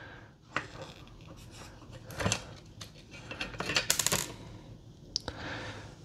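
Small plastic clicks and taps as the S3XY Knob's plastic housing is opened and its circuit board lifted out by hand, with a quick run of sharper clicks about four seconds in.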